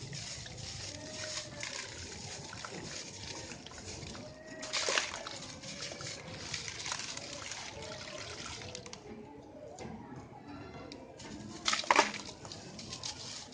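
White concrete lumps crumbling and crunching, with a steady crackle of small grains and two louder crunches, about five seconds in and near the end.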